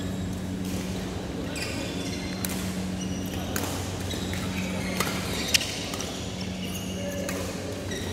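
Badminton rally: rackets striking the shuttlecock with sharp cracks, the two loudest about half a second apart just past the middle, and shoes squeaking on the court floor, over a steady low hum.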